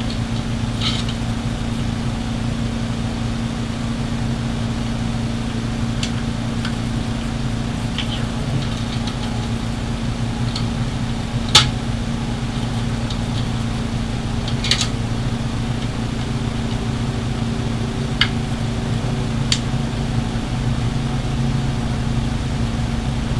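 A steady low machine hum, like an air conditioner or generator, with scattered light clicks and taps of metal rifle parts and tools being handled while an AR-15 is taken apart. The sharpest click comes about halfway through.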